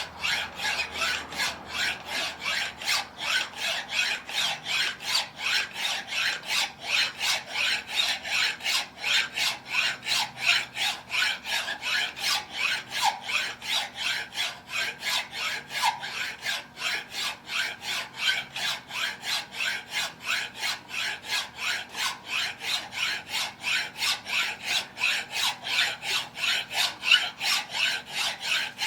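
Hand file being stroked back and forth over a form die, in a steady rhythm of about three strokes a second, enlarging the die's radius toward about 3/32 inch.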